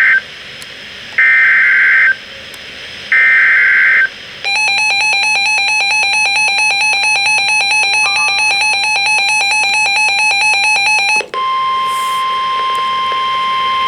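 NOAA Weather Radio alert sequence: three one-second bursts of screechy SAME digital header tones, then a rapidly pulsing electronic alarm beep for about seven seconds. From about eleven seconds in comes the steady 1050 Hz warning alarm tone that precedes a new warning.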